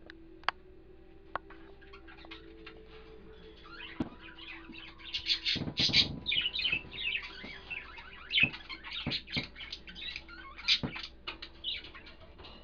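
White-bellied caique giving a rapid run of short, high chirps and squeaks from about four seconds in, with one louder, harsher burst around six seconds. Two sharp clicks come first.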